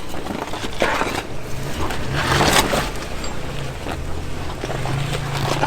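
Honda Pilot's V6 engine running at low trail speed, with rushes of crunching noise about a second in, around two and a half seconds in (the loudest) and near the end, as the tyres go over loose rock.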